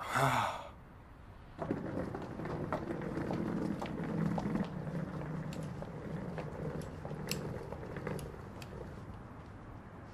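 A brief sound falling in pitch at the very start. Then, from about a second and a half in, the low rumble and scattered clicks of a wheeled suitcase being pulled over a paved street, fading toward the end.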